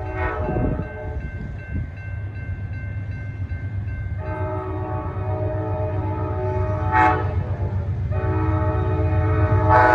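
An approaching Amtrak GE P42 Genesis diesel locomotive sounding its multi-chime air horn for the grade crossing. A blast ends just after the start, a long blast follows about four seconds in, and another begins right after it near the end, over a low rumble that grows louder as the train nears.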